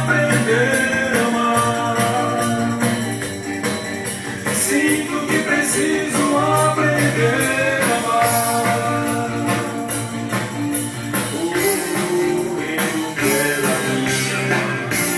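Pop-rock song playing from a vinyl record on a Garrard 50-SB turntable: a passage without lyrics, with drums keeping a steady beat under a band and a melody line gliding between notes.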